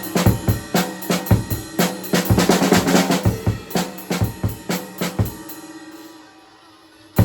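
Acoustic drum kit played with bass drum and snare, a quicker run of strokes about two to three seconds in. The playing breaks off about five seconds in and the kit dies away, then a loud hit restarts it at the very end.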